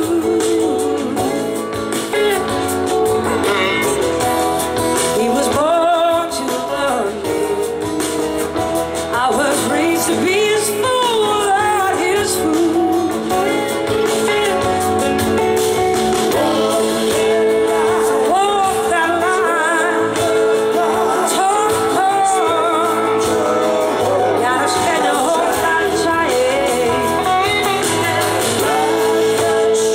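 Live blues-rock band playing: electric guitars over drums, with a lead line of gliding, bending notes on top.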